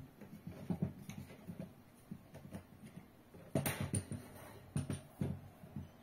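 Handling of a lightweight aluminium travel tripod as its plastic pan head is fitted onto the centre column: irregular small clicks and knocks of plastic and metal parts, loudest in a cluster a little past halfway.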